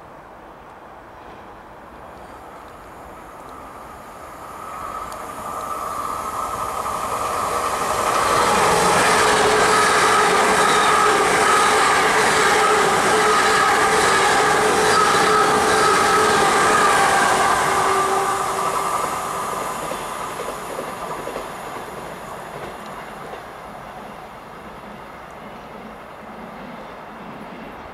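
GWR Hitachi intercity train passing through the station at speed. It grows louder as it approaches, holds loud for about ten seconds with steady whining tones over the rail noise, then fades as it draws away.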